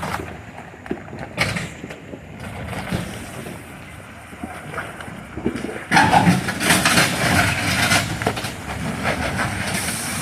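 Off-road vehicle driving a rough trail: engine and tyres over uneven ground with scattered knocks and rattles, getting noticeably louder about six seconds in.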